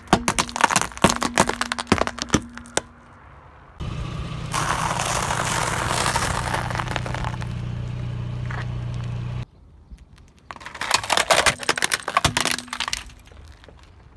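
Walnut shells cracking under a car tyre, a rapid run of sharp cracks lasting about three seconds. The car's engine then hums steadily under an even crunching hiss for about five seconds. Near the end a plastic toy car snaps and cracks apart under the tyre in a second quick burst.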